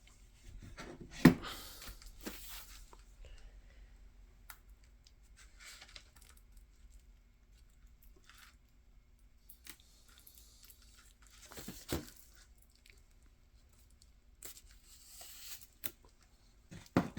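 Packaging on a vinyl record being torn open and handled: scattered bursts of tearing and crinkling, with a sharp knock about a second in and a dull thump near the middle.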